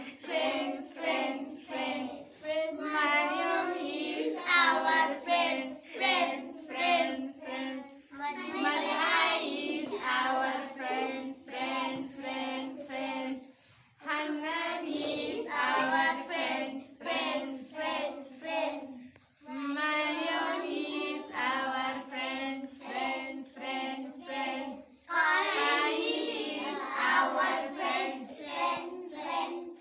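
A group of young children singing together in a song, phrase after phrase, with two brief breaks about a third and two thirds of the way through.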